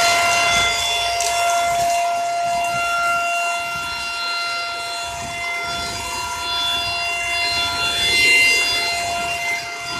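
Dirt Devil Power Stick 4-in-1 vacuum's motor running with a steady, high-pitched whine while vacuuming.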